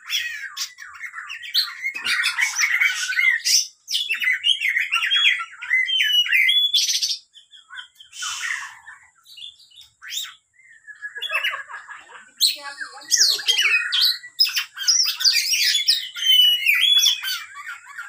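Caged oriental magpie-robin (kacer) singing: fast, varied whistled phrases and chirps in bursts, breaking off for a couple of seconds near the middle before starting again.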